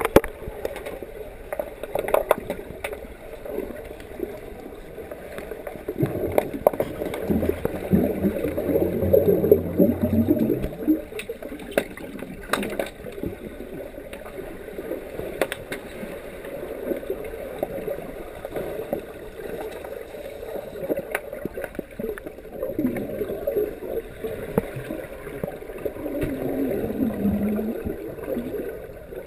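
Muffled underwater sound picked up by a camera submerged in a swimming pool: uneven gurgling and sloshing of water disturbed by swimmers, louder for a few seconds in the middle, with scattered sharp clicks and knocks.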